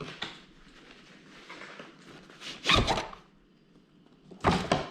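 Packaging being handled during a camera unboxing: faint rustling, then two loud, short, zipper-like rasps, one midway and one near the end.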